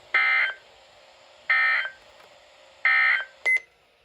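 Emergency Alert System (SAME) end-of-message data bursts, a warbling digital tone sent three times. Each burst lasts about a third of a second, with roughly a second's gap between them, marking the close of the flood alert. A short click follows near the end.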